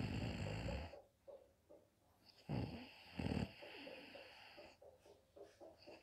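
A woman snoring in her sleep: one snore dies away about a second in, and another comes in two pulses between about two and a half and three and a half seconds.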